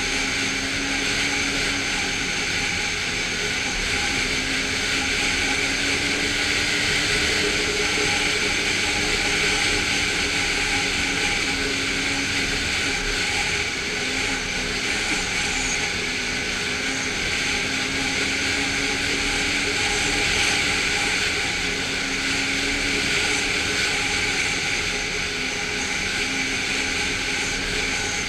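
Snowmobile engine running steadily at cruising speed, its pitch wavering slightly, over a constant rush of noise.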